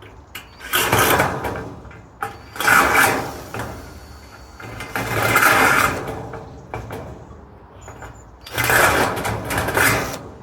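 Battery-powered telescopic rivet gun running in four short bursts of about a second each, its motor pulling 4.8 mm aluminium pop rivets tight.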